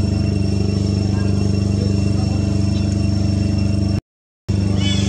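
A steady idling engine hum with a fast, even throb. The sound cuts out completely for about half a second near the end.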